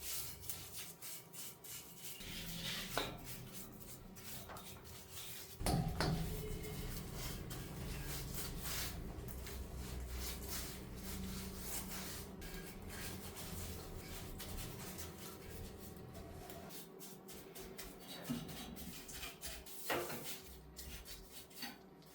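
Faint workshop handwork: rubbing and scraping with scattered small clicks and knocks, and a low rumble from about six to sixteen seconds in.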